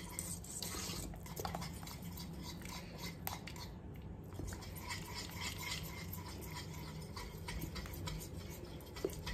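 Coil whisk stirring thick cocoa pudding cream in a stainless steel pot, with many small irregular scrapes and ticks of the wire against the pot, over a steady low hum.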